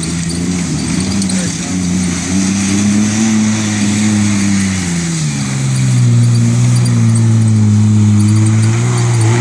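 Jeep engine running under load off-road. Its pitch climbs a little, then drops about five seconds in and holds steady at a lower speed.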